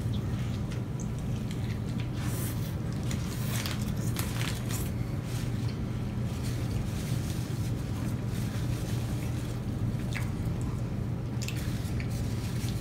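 Two people chewing large mouthfuls of a quadruple-patty Whopper burger: wet, squishy mouth sounds with scattered short crackles, over a steady low hum.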